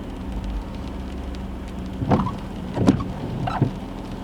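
Inside a parked car in the rain: a steady engine hum and rain on the car, with windshield wipers knocking three times in the second half.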